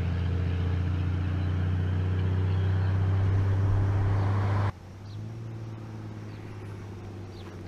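The 5.9-litre 12-valve Cummins inline-six turbodiesel in a 1989 Dodge D250, straight-piped through a 5-inch pipe into an 8-inch stack, running at a steady engine speed with a steady low drone. A little past halfway the sound drops suddenly to a fainter drone.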